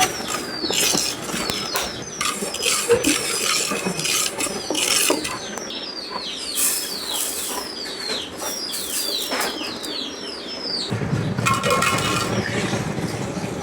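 Birds chirping, a rapid series of short, high, falling chirps. About eleven seconds in a low rumble sets in, with a brief pitched tone over it.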